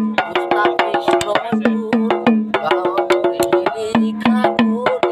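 A man singing a song in Assamese in held, melodic notes while keeping time with quick, even taps of a wooden stick on a woven bamboo basket.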